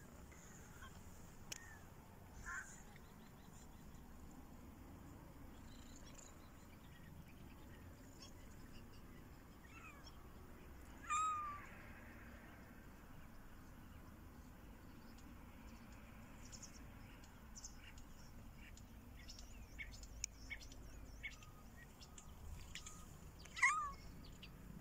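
Kittens meowing: a few short faint mews, then two louder meows, one about eleven seconds in and one near the end.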